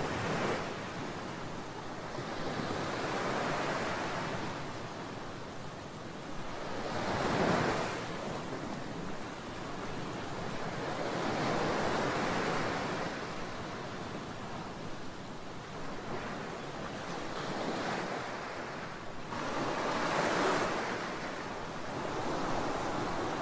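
Electric high-speed floor burnisher running with its pad on polished concrete: a steady rushing noise that swells and fades about every four seconds as the machine is swept back and forth.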